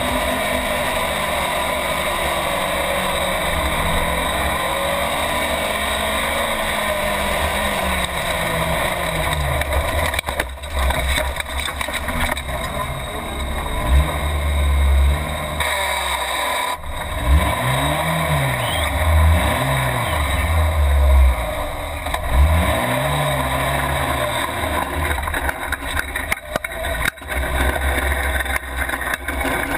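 Race car engine heard from inside the cockpit, running hard under load. In the second half it revs up and drops back several times in quick succession.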